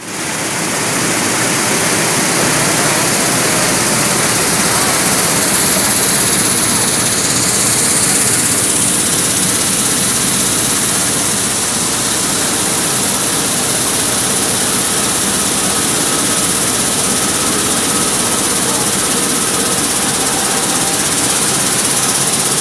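Sunflower seed hulling line running: vibrating screens, shaken by their vibration motors, carrying a stream of seeds and hulls, a loud, steady machine noise.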